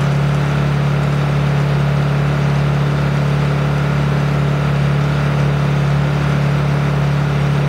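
Honda EU2000 inverter generator's single-cylinder four-stroke engine running steadily at full throttle, eco-throttle off and no load on it yet, a loud even hum.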